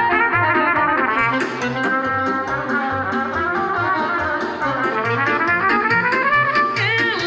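Live trumpet playing a melody over an electronic keyboard accompaniment with a steady bass beat, with a quick swooping phrase near the end.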